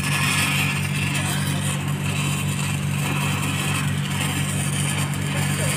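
Stick (shielded metal arc) welding on a steel gas-pipeline joint, the arc crackling steadily, over a constant low machine hum.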